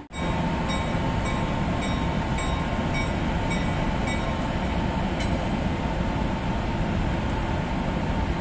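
NJ Transit passenger train running with a steady rumble. A short ringing ding repeats about every half second over the first four seconds or so.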